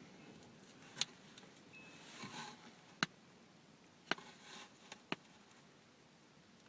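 Faint handling sounds from opening and using a tube of hand cream: a few sharp, separate clicks, two of them close together near the end, and two short soft rustling or rubbing sounds in between.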